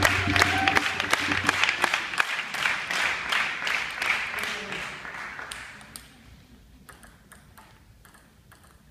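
Audience applauding, dying away over about five seconds, with low music stopping about a second and a half in. After that, only a few faint isolated clicks.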